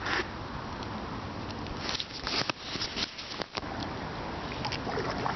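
Kayak paddle strokes: a few short splashes and drips of water, clustered a couple of seconds in, over a steady wash of water noise.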